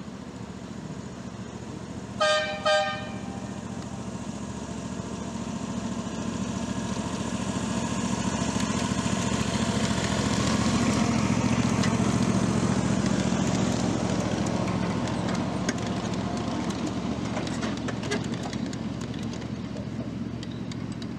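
Miniature ride-on train of a 7.5-inch gauge railroad sounding two short toots on its whistle, then passing by: its running noise swells to its loudest about halfway through and slowly fades, with many sharp clicks of the wheels over the track.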